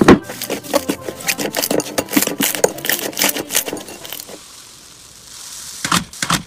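Slime being squeezed and poked by hand: a dense run of sticky crackles and pops, opening with a loud snap. It eases to a soft hiss about four seconds in, then gives two more loud pops near the end.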